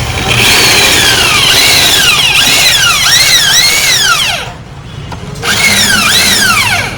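Electric drill boring out a hole to a larger size, its whine sliding up and down in pitch as the bit works. It stops for about a second midway, then runs again and winds down near the end.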